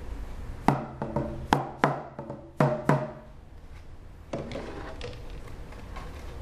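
Goat-skin hand drum struck with a beater in double beats, about one pair a second, each stroke ringing briefly with a low tone; after about three seconds the strokes turn softer.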